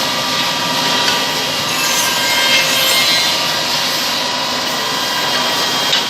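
Woodmaster double-head CNC tenoning machine running, its spindle cutters machining tenons into wood: a steady whine of the spindles over the noise of the cutting.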